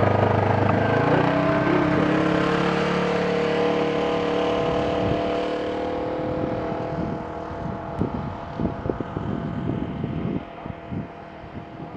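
A motor engine rising in pitch over about the first second, then running steadily and fading away over the second half, with irregular crackling noise in its place near the end.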